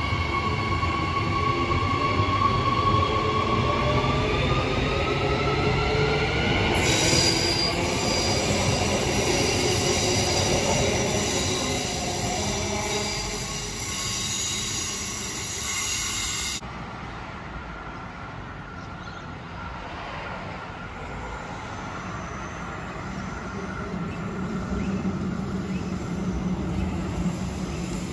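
Queensland Rail electric multiple-unit train running past: a high whine that rises in pitch over a few seconds as it gathers speed, over the rumble of its wheels on the track. After a sudden cut, another electric train's rumble grows steadily louder as it approaches.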